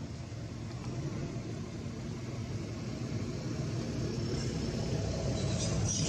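A low, steady mechanical rumble that slowly grows louder, with faint high-pitched chirps from about four seconds in.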